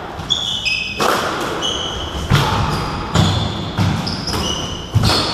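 Squash rally: the ball cracks off rackets and court walls about once a second, each hit echoing in the court, while sneakers squeak on the wooden floor.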